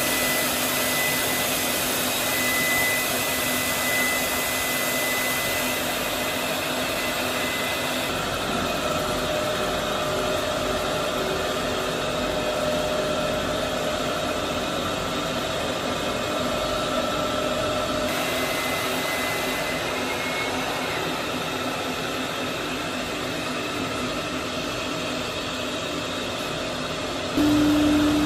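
Steady whirring hum of PVC pipe factory machinery, with faint steady whine tones that shift a few times. Near the end a louder hum with a low steady tone comes in.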